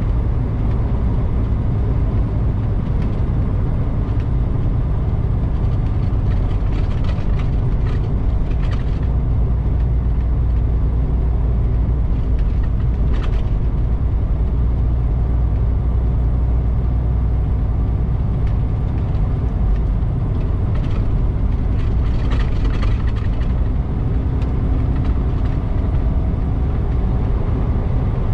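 Semi-truck's diesel engine and tyres droning steadily at highway cruising speed, heard from inside the cab, with a few faint clicks.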